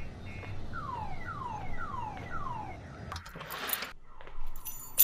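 An electronic alarm tone sweeping down in pitch four times in a row, about two a second, followed about three seconds in by a brief rushing noise.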